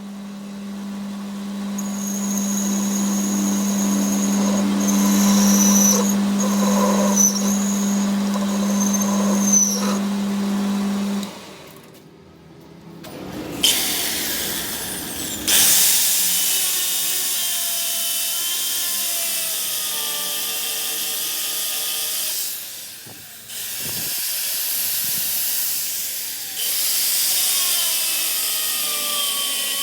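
Power tools running on a truck pinion repair. A steady motor hum with a high whine comes first, then after a brief pause a louder, harsher tool noise with wavering whines.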